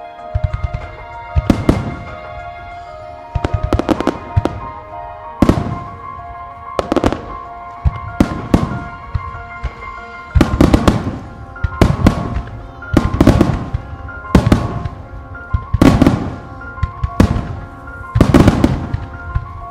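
Starmine fireworks: aerial shells bursting in loud bangs about every one to two seconds, some in quick clusters, with music playing underneath.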